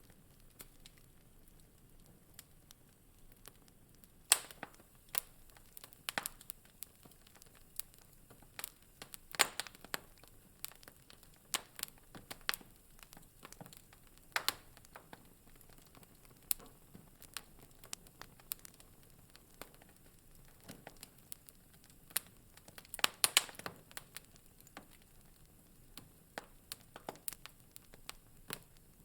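Wood fire crackling in a fireplace: irregular sharp pops and snaps of varying loudness over a faint hiss, the loudest coming in a quick cluster about three-quarters of the way through.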